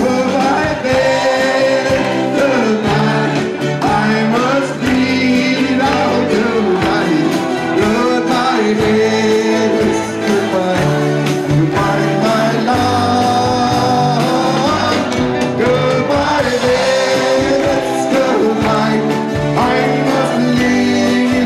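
Live band playing an upbeat pop song, with electric guitars and drums under a singer's melody.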